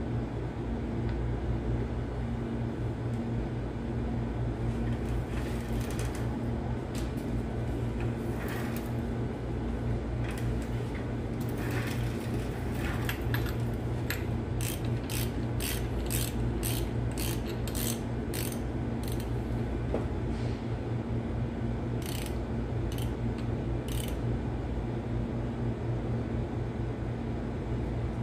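Socket ratchet wrench clicking as a bolt is run in on an engine timing gear: scattered clicks, then a steady run of about two clicks a second through the middle, and a few more near the end, over a steady low hum.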